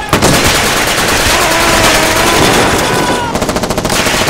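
Heavy small-arms gunfire from a WW2 firefight: overlapping rifle shots and machine-gun bursts, with a fast, even burst of automatic fire near the end.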